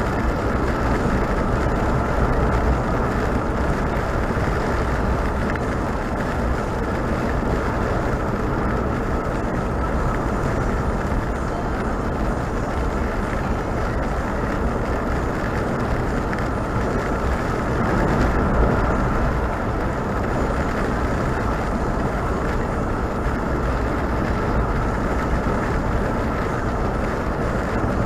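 Steady noise of a vehicle driving on a highway: continuous engine and tyre rumble with no clear changes.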